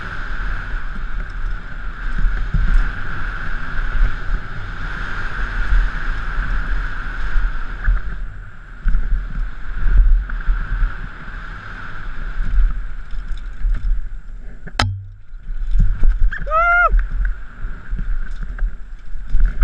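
Downhill mountain bike at speed over a rough dirt and rock course: wind rush on a helmet-mounted microphone, a constant rumble and rattle from the bumps, and a steady hiss. About fifteen seconds in there is one sharp knock, and the noise drops for a moment. Just after that comes a short pitched call that rises and falls.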